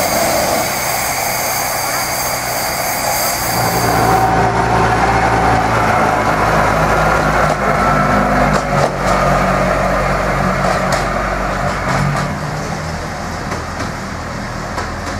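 For about the first four seconds a miniature steam locomotive hisses steam at the platform. Then the diesel engine of a small 15-inch-gauge Bo-Bo diesel locomotive runs steadily as it pulls past and away, fading in the last few seconds.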